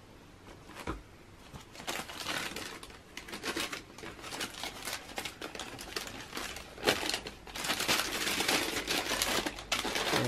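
Tissue paper in a shoebox rustling and crinkling as hands unfold it, starting about two seconds in and going on in quick irregular crackles.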